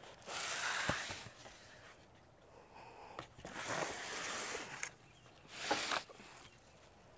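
Rustling of the leafy mandevilla vine as its stems are handled and pulled toward the obelisk, in three short bursts, the middle one the longest.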